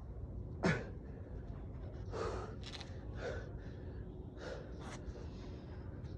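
A man breathing hard and gasping from the exertion of a long unbroken set of push-ups. There are short, sharp breaths about once a second, the loudest a falling gasp about a second in.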